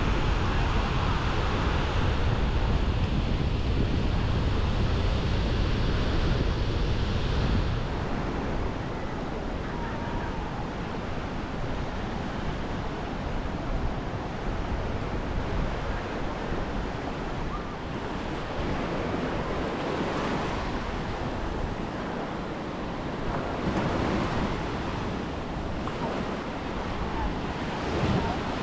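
Small ocean waves breaking and washing up a sandy beach. For the first several seconds wind rumbles on the microphone. After that the surf rises and falls every few seconds.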